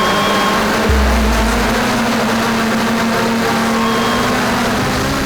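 FPV racing drones' electric motors whirring steadily. A brief low rumble comes about a second in.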